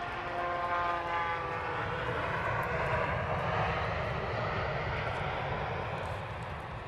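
Airbus A320 jet engines on the landing rollout. A whine fades in the first second and a half while a broad engine noise swells, loudest around three seconds in, then eases off: typical of reverse thrust slowing the jet after touchdown.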